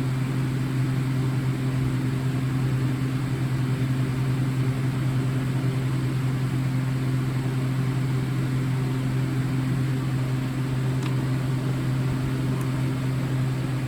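Steady low hum that holds level and pitch throughout.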